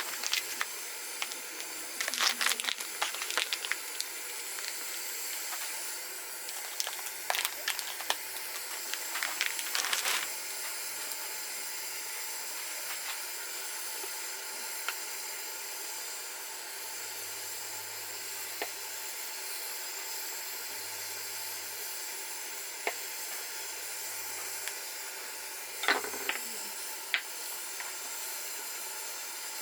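A steady hiss, with short clusters of clicks and clatters about two seconds in, from seven to ten seconds, and again near the end.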